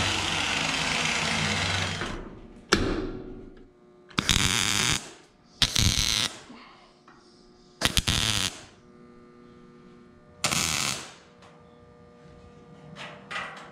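An angle grinder running on after a cut, then spinning down over a second or two. Then four short crackling bursts of MIG tack welding on steel tubing, each under a second, a second or two apart.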